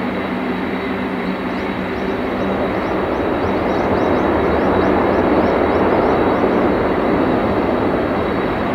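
Lufthansa Airbus A380-841's Rolls-Royce Trent 900 jet engines roaring as the airliner rolls out on the runway after landing. The roar swells about four seconds in.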